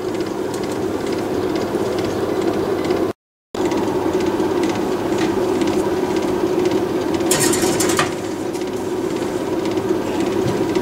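Steady hum of a kitchen appliance fan, with scattered light clicks and a brief scraping rattle a little past halfway as the glass baking dish is handled at the open oven. The sound drops out for a moment about a third of the way in.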